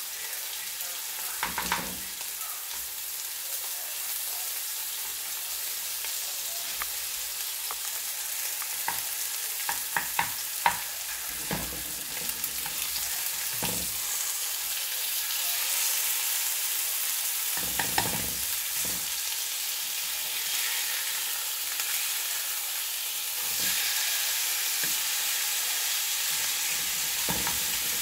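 Marinated beef steaks sizzling steadily as they fry in olive oil in a frying pan, with a few short knocks and scrapes as a wooden spatula presses and turns them against the pan.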